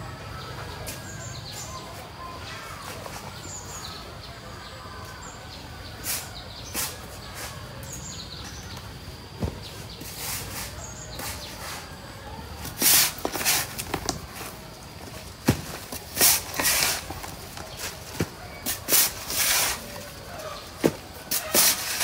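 Metal shovel scraping and digging into soil, a string of short gritty scrapes that thicken about halfway through. Faint bird chirps sound in the background during the first few seconds.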